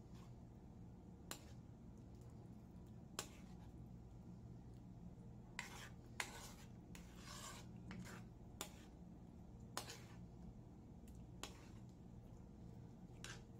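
A spoon stirring a creamy potato mixture in a metal pan, scraping and tapping against the pan's side. There are scattered light clicks, and a few longer scrapes about halfway through, over a faint low hum.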